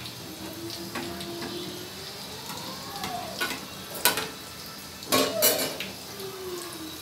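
Urad dal vadas deep-frying in hot oil in a metal kadai, a steady sizzle, while a slotted steel spoon turns them. Sharp metal clanks of the spoon about four seconds in and again a little after five seconds.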